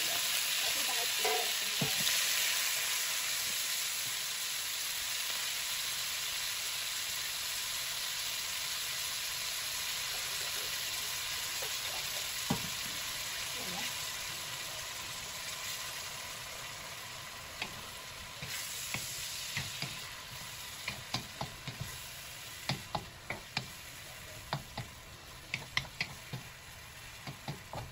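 Marinated shredded beef sizzling in hot oil in a wok. The hiss is loudest as the meat goes in and fades steadily as its juices run out. From about halfway on, a wooden spatula stirs it, tapping sharply against the wok many times.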